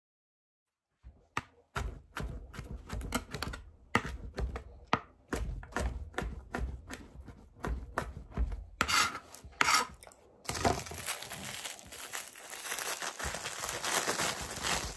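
Kitchen knife chopping garlic on a plastic cutting board, a rapid, irregular run of knocks starting about a second in. From about ten seconds in, a plastic bag crinkles as it is handled.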